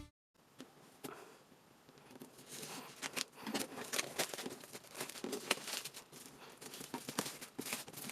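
Packaging being handled and opened by hand: faint rustling and crinkling with scattered light clicks and taps, starting about half a second in.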